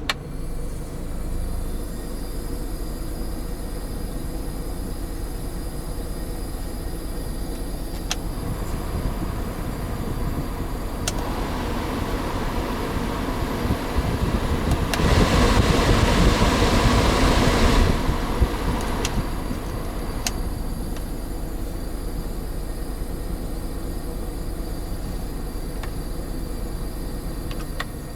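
Nissan NV350 Caravan diesel engine idling with a continuous hiss from the air-conditioning system, which swells and grows loud for a few seconds about halfway through, with a few sharp clicks. The owner takes the hiss with the AC on, together with the AC not cooling, as a strong sign of a refrigerant gas leak.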